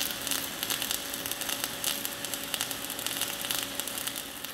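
Welding arc of a CRC-Evans M-300C automatic pipe welding bug, a steady dense crackle and sizzle as it lays weld metal into the pipe bevel, with a faint steady hum underneath. The sound fades away near the end.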